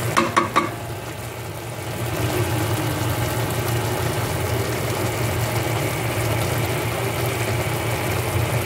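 Pot of squash, moringa and chicken simmering on the stove, a steady sizzling hiss over a constant low hum, with a few short clinks in the first second.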